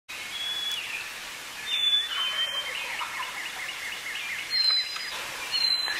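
Wild songbirds singing: several clear, level high whistled notes, plus a fast series of short chirps in the middle.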